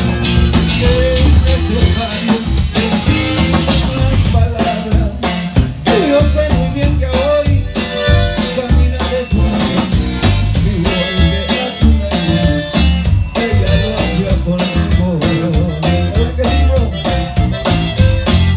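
Live Tejano conjunto band playing a song: drum kit keeping a steady beat under a strummed acoustic guitar and a strong bass line.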